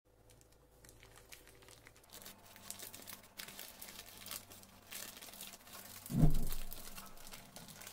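Baking parchment being peeled off the top of a baked cake, crinkling and crackling in many small bursts. A short low thump about six seconds in is the loudest sound.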